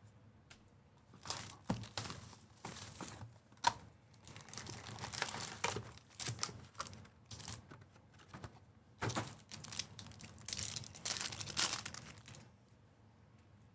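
Trading-card pack wrappers crinkling and tearing as packs are ripped open, in irregular bursts with a few sharp clicks, falling quiet near the end.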